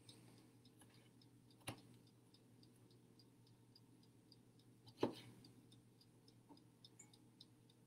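Two sharp knocks of a kitchen knife on a cutting board while eggplant skins are cut, the second louder, over a faint, fast, steady ticking of about three to four ticks a second.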